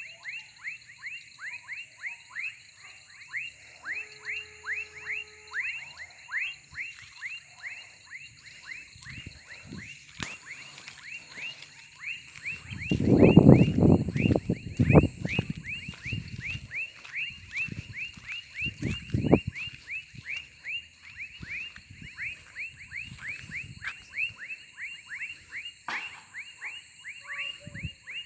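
Night-time animal chorus: a rapid, even series of short falling chirps, about three a second, over a steady high insect drone. A louder low rustling comes for a few seconds near the middle and once more briefly after it.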